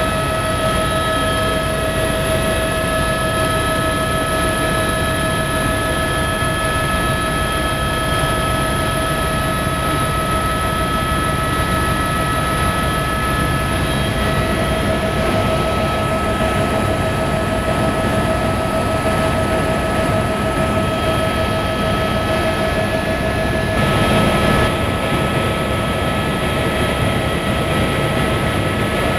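Helicopter in flight heard from inside the cabin: a steady rotor and engine drone with a constant high whine. It grows briefly louder near the end.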